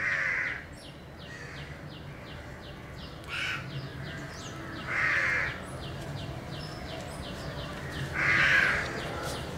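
Crows cawing: four harsh calls a few seconds apart. Behind them runs a faint, even series of short high ticks about twice a second.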